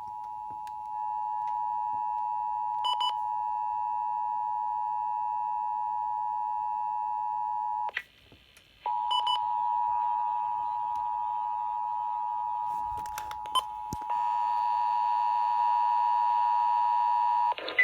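Emergency Alert System two-tone attention signal, 853 Hz and 960 Hz sounded together as a steady, piercing dual tone. It cuts out for under a second about eight seconds in, resumes, and grows louder with added overtones from about fourteen seconds. The signal announces an incoming Child Abduction Emergency alert message.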